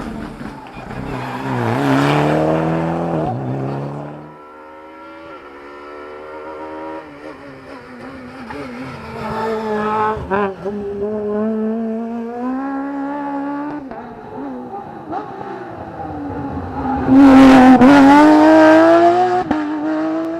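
Rally car engines revving hard at full throttle as cars pass, the pitch climbing and dropping sharply through quick gear changes. The loudest pass comes about three-quarters of the way through.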